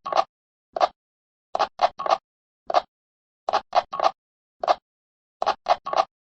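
Radio button clicks repeating in a loop: a single click, then a quick run of three clicks, the pattern coming round about every two seconds.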